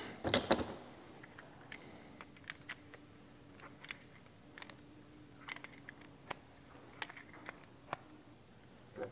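Scattered sharp clicks and light metallic taps of a Knipex pliers wrench gripping and turning steel hydraulic fittings on an aluminum valve block while they are tightened. The loudest pair of clicks comes about half a second in.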